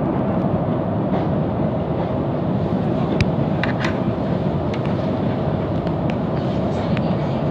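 Electric commuter train running along the track, heard from inside the carriage: a steady rumble with a faint steady hum and a few brief clicks from the wheels and rails.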